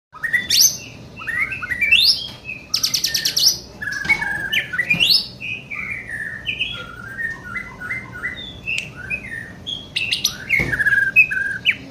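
A young white-rumped shama (murai batu) singing a long, varied song of quick whistled notes, sweeps and chatters, with a fast rattling trill about three seconds in. It is in full, steady song.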